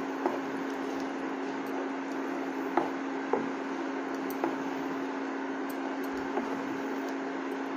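A spatula stirs a thick, wet rice, dal and vegetable mixture in a nonstick pan, knocking lightly against the pan a few times. Under it runs the steady hum of an induction cooktop.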